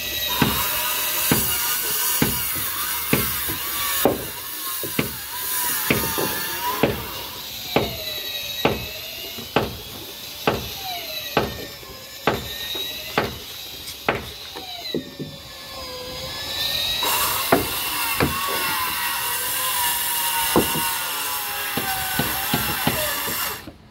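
Wooden mallet striking the timber of a boat frame, about one blow a second. Under the blows an electric circular saw whines, its pitch dipping and rising as it cuts, and it runs louder and steadier for the last several seconds.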